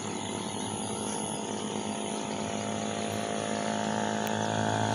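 A small engine running steadily at a constant speed, with a hum that holds one pitch throughout.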